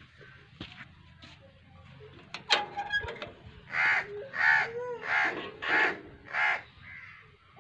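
A bird calls five times in a row, loud and rasping, about one call every two-thirds of a second, starting about four seconds in. A sharp knock with a short metallic ring comes shortly before the calls.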